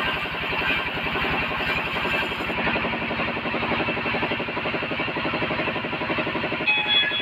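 Wood bandsaw running while sawing timber, a steady machine drone with a fast, even pulsing from its drive and a thin high whine above it.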